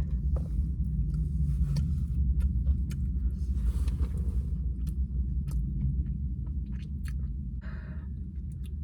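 Close-up chewing of a mouthful of taco: many short wet clicks and smacks of the mouth over a steady low hum, with a brief rustling burst near the end.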